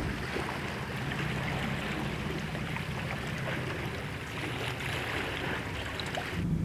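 Small waves lapping and washing over a rocky shoreline of a calm sea, a steady watery wash that stops abruptly just before the end.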